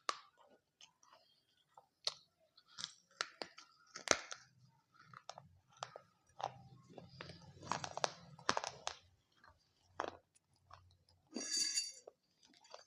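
Close-up chewing of dahi papdi chaat: crisp fried papdi wafers crunching with many short, sharp crackles between bites.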